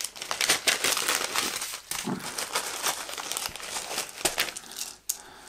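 Thin plastic bag crinkling and rustling as it is handled open and small wooden wolf tokens are taken out. The crackling dies down near the end.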